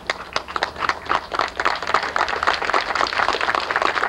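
Audience applauding: scattered claps at first, building within about a second into steady applause.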